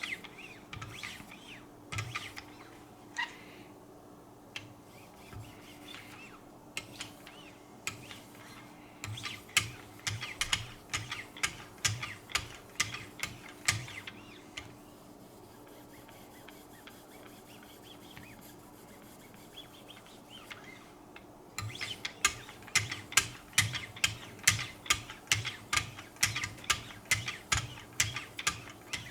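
Abrasive paddles of a Wicked Edge guided knife sharpener drawn along a knife edge, each stroke a short scrape, working up to the fine '3' grit. A run of strokes comes about two a second in the middle, then a pause, then a louder, quicker run of about three a second near the end.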